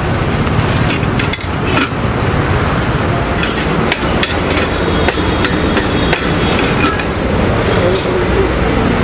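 Metal utensils clinking and knocking against stainless-steel serving pots and lids in sharp, irregular knocks, over a steady hum of street traffic.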